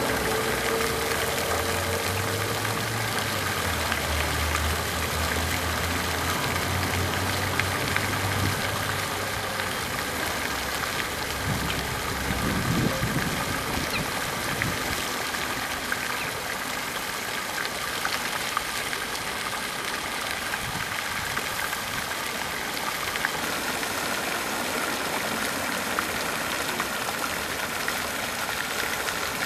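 A pond fountain's jets falling back onto the water around a coot's nest, a steady splashing hiss. A low hum runs underneath for the first ten seconds or so, then fades out.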